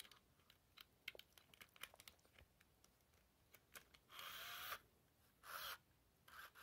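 Faint handling noise from a Furby toy being held and squeezed in the hands: scattered light clicks, then two brief rustles of its fur being rubbed, about four and five and a half seconds in.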